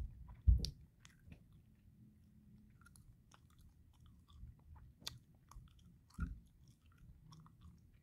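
Faint mouth noises close to the microphone: two soft low thumps within the first second, then scattered small clicks and smacks.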